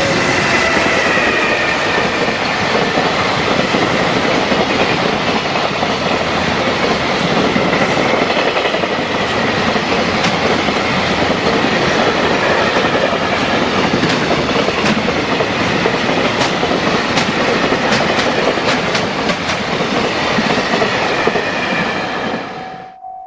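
Freight train running fast through a level crossing: a long, loud rush of wheels and wagons with a clickety-clack of wheels over rail joints in its later part. The train noise cuts off suddenly near the end, leaving the level-crossing warning bell ringing.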